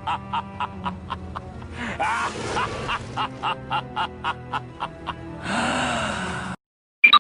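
Evil laugh sound effect: a long run of short 'ha' pulses, about four a second, over a low music bed, breaking off suddenly about six and a half seconds in.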